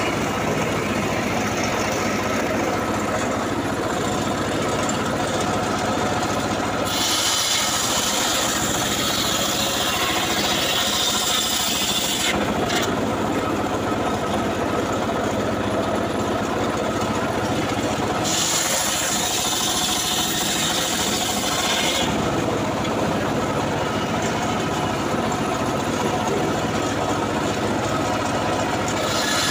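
Homemade engine-driven circular sawmill ripping a log lengthwise, the large blade cutting through the wood over the steady drone of the engine. The cutting noise turns harsher and hissier twice, about a quarter of the way in and again past the middle.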